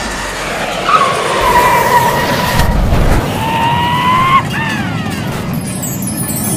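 Vehicle sound effects: a steady rushing engine-and-road noise with several squealing tyre screeches that bend in pitch, and a low boom about three seconds in.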